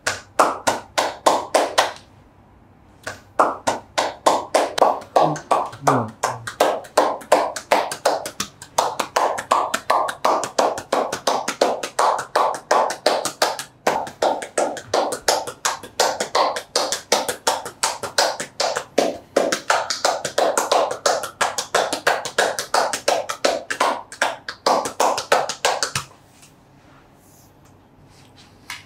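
Percussive massage: a therapist's hands rapidly striking the thigh in a quick, even rhythm of about four to five hits a second. There is a short pause about two seconds in, and the strikes stop near the end.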